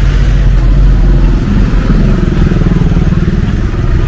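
Street traffic, with a motorbike engine running close by and swelling in the middle as it passes.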